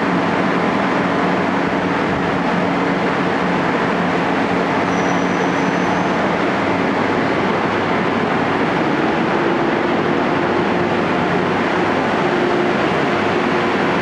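AVE high-speed train running at a steady speed: an even, loud rushing noise with low humming tones, one of which steps up in pitch about nine seconds in.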